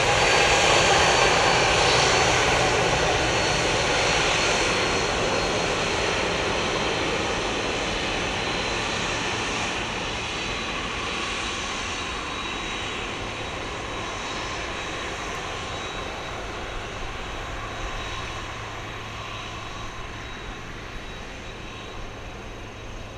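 Boeing 767-300ER's twin turbofan engines at taxi power: a steady jet whine with a thin high tone, loudest at first and fading gradually as the airliner taxis away.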